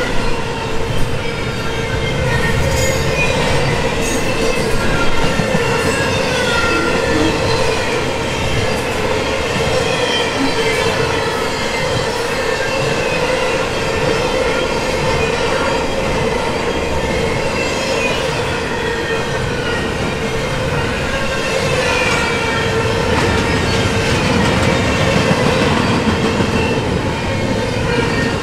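Double-stack intermodal freight cars rolling past at speed: a steady rumble of steel wheels on rail, with wavering high-pitched wheel squeals sliding up and down over it.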